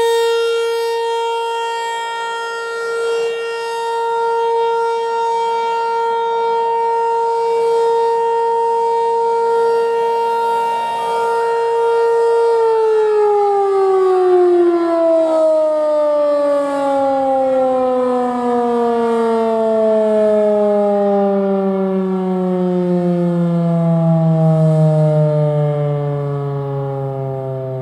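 Federal Signal 508-128 dual-tone outdoor warning siren sounding its steady Alert tone, then about twelve seconds in it shuts off and winds down, its pitch falling slowly and steadily.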